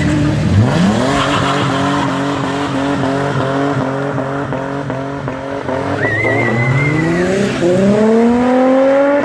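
Cars accelerating hard away one after another: an engine revving up with a wavering, stepped pitch, a brief high tyre squeal about six seconds in, then a Holden Commodore's engine rising steeply in pitch as it accelerates past near the end.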